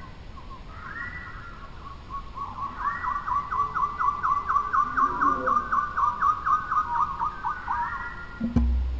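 A bird calling in the forest: a few arched whistled notes, then a long, rapid run of repeated notes at about four a second that ends a little before a single low thump near the end.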